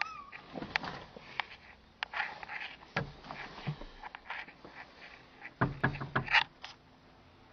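Door handle being turned and rattling, a run of irregular sharp clicks and knocks, loudest about six seconds in, recorded on a phone.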